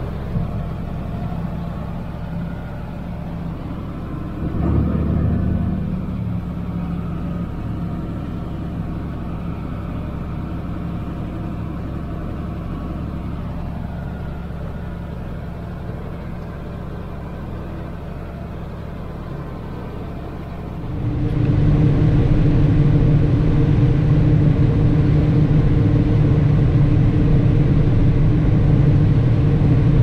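Heavy farm harvesting machinery running steadily with a continuous engine drone, swelling briefly about five seconds in. About 21 seconds in it suddenly becomes louder, with a stronger low hum.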